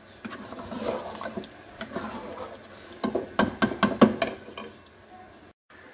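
Wooden spatula stirring and turning chicken pieces in yogurt masala in a cooking pot, scraping and knocking against the pot, with a run of sharp knocks about three to four seconds in.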